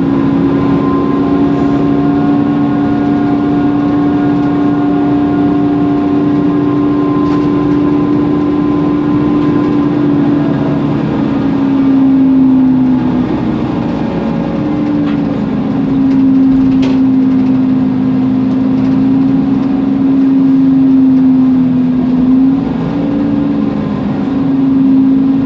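Loud, steady whine of the cooling fan on a Mercedes-Benz Conecto NGT bus, heard over its OM936G natural-gas engine and road noise. The whine holds one pitch and shifts slightly a few times.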